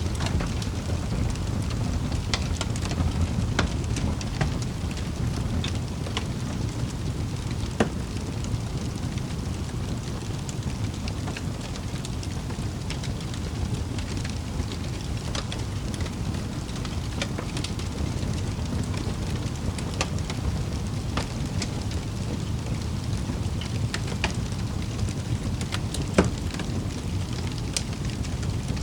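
Wood fire burning in a fireplace: a steady low rushing of the flames with scattered sharp crackles and pops, two of them louder, about 8 seconds in and near the end.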